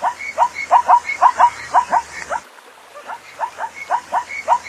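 Zebra calling: a rapid series of short, rising, bark-like yelps, about four a second, with a brief lull in the middle.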